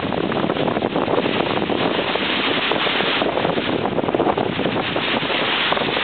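Wind buffeting the microphone over small lake waves breaking and washing up a pebbly shore, a steady rushing noise.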